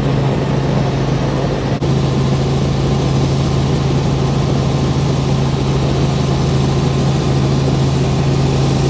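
Robinson R44 helicopter in flight, heard from inside the cabin: its piston engine and rotor give a loud, steady drone with a strong low hum, broken once by a brief dip about two seconds in.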